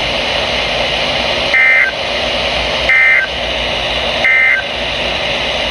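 Three short bursts of Emergency Alert System SAME digital data, a buzzy two-tone warble, evenly spaced about a second and a half apart over a steady radio hiss. Their shortness fits the end-of-message code that closes an EAS alert.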